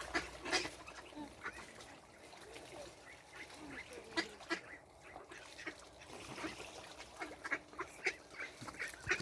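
A flock of ducks quacking in many short, repeated calls as they crowd in for food thrown to them.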